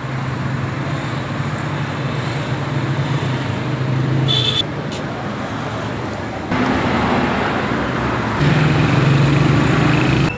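Road traffic noise with a steady low engine hum from running vehicles, and a short high-pitched beep about four and a half seconds in.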